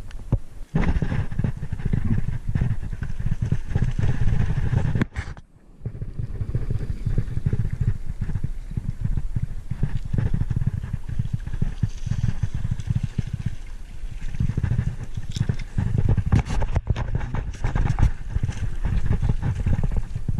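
Heavy, uneven low rumbling of a body-worn camera microphone being jostled and rubbed, with a brief sudden drop-out about five seconds in.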